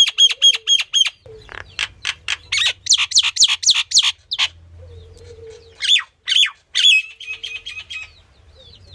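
Songbird calls: a quick run of evenly spaced high chirps, then a loud series of sharp, downward-sweeping notes. After a pause come a couple of separate calls, and a rapid trill of short chirps near the end.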